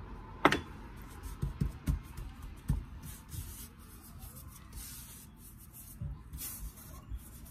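Gloved hand working scone dough on a silicone baking mat: a sharp knock about half a second in, then a few soft thumps as the dough is patted, followed by brief rustling hisses as flour is sprinkled over it.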